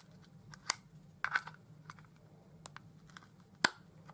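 Irregular sharp plastic clicks and taps as fingers pry at tightly held batteries in a small device's battery compartment. The loudest click comes about three and a half seconds in.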